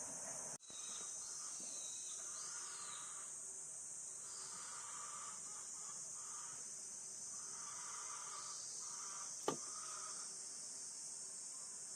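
Steady, high-pitched drone of summer insects, with a sharp click about nine and a half seconds in.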